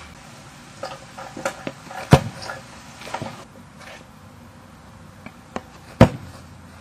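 A football kicked hard once, a sharp thud about six seconds in. An earlier, softer thump comes about two seconds in.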